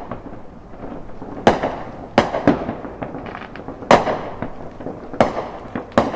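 Fireworks going off: about six sharp bangs at irregular intervals, each trailing off in an echoing tail, with smaller pops and crackles between them.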